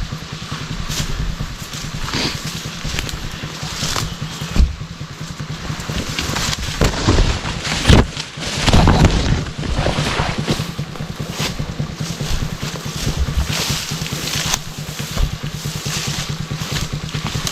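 Dirt bike engine running at low, steady revs as it picks through rocky ground, with scattered knocks and louder surges over it, the loudest about halfway through.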